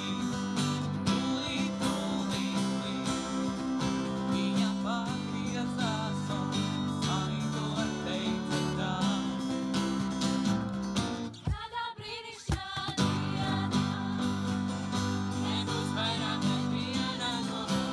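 Background music: a song with strummed guitar, a steady bass line and singing. It thins out briefly about two-thirds of the way through, then comes back.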